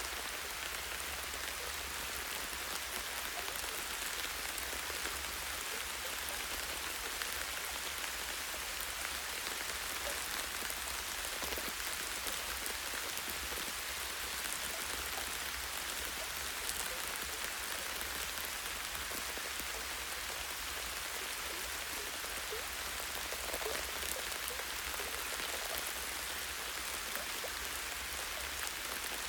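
Light, steady rain falling on leaves and branches, a constant hiss with scattered individual drops ticking. A steady low rumble sits beneath it.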